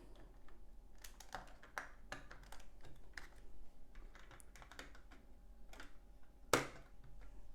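Plastic LEGO bricks clicking and tapping as pieces are handled and pressed together, a scatter of irregular small clicks with one louder click near the end.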